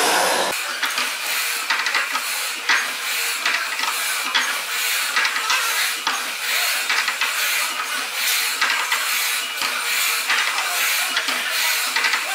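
1895 Worth McKenzie triple-expansion steam engine running, with a steady hiss of steam and a continuous run of clicks and knocks from its moving parts, before the condenser vacuum is turned on.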